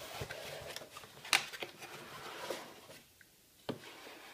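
Cardboard box being handled and moved on a tabletop: rustling and scraping with a few sharp taps, the loudest about a second and a half in. It goes quiet after about three seconds, with one more tap near the end.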